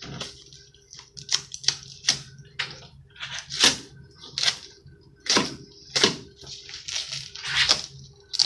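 Fillet knife cutting through a triggerfish's flesh to free the fillet from the carcass: a run of short, irregular slicing strokes, some sharp and loud, some soft and wet.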